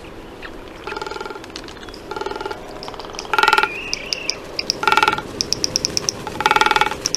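Frigatebird calls: a run of rapid rattling calls, each about half a second long and repeating every second or so, with short high chirps between them.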